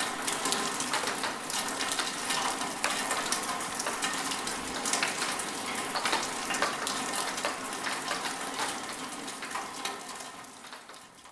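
Rain falling, a dense patter of many small drops, fading out over the last few seconds.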